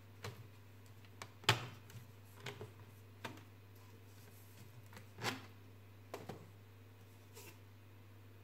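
Scattered light clicks and knocks of 3D-printed ABS plastic case parts being handled on a table: the mesh cover fitted onto and lifted off its base. The loudest knock comes about one and a half seconds in, another a little after five seconds.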